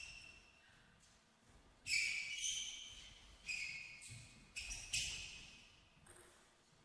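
Sports shoes squeaking on the court floor of a table tennis hall as a player walks about: about half a dozen short, high squeaks at uneven intervals, each fading quickly.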